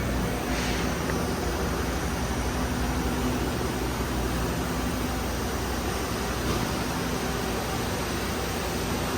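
Steady machinery hum of a CNC turning center running, with low tones under an even hiss and a brief louder hiss about half a second in.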